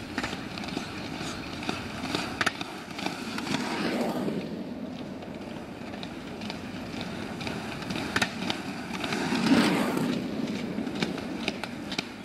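Roller ski wheels rolling on asphalt as skate-skiers pass, swelling twice as a skier comes close, with scattered sharp clicks.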